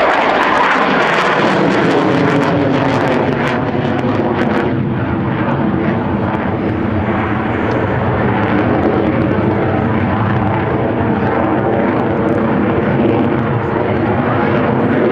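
Loud, steady jet noise from a Saab JAS 39 Gripen fighter's single Volvo RM12 turbofan as the jet climbs straight up and away.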